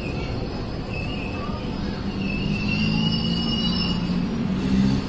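Tokyo Metro 6000 series electric commuter train at the platform, its wheels squealing on the rails in short high tones over a steady rumble. A low steady hum comes in about two seconds in.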